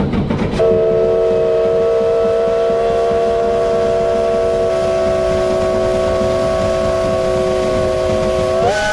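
Steam locomotive's whistle sounding one long blast of several notes together, starting about half a second in and held for about eight seconds, stepping up slightly in pitch near the end.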